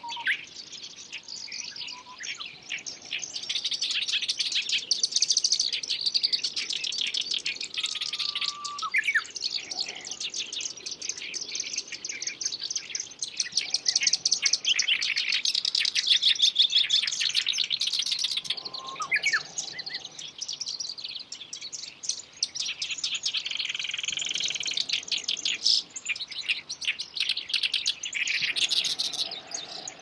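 Black-browed reed warbler singing: a long, fast run of many short, varied notes, louder and softer by turns, with a few lower whistled notes that sweep upward now and then.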